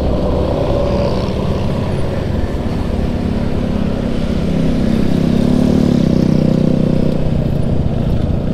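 A large bus's diesel engine running under load, its low drone swelling and rising a little in pitch about five seconds in, then easing off, over road noise.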